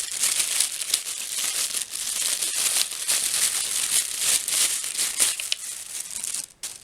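Packaging crinkling and rustling as a small speaker is unwrapped from it, a dense run of crackles that stops abruptly near the end.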